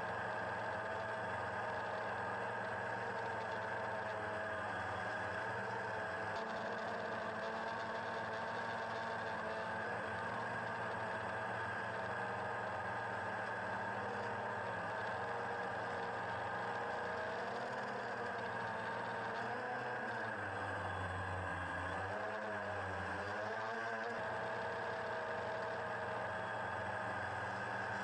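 DJI Phantom quadcopter's motors and propellers buzzing steadily, heard from the action camera it carries. About twenty seconds in, the pitch wobbles up and down for a few seconds as the motors change speed, then settles again.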